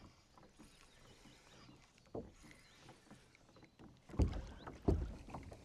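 Kayak handling sounds: a light knock about two seconds in, then two dull, heavy thumps on the hull in the second half.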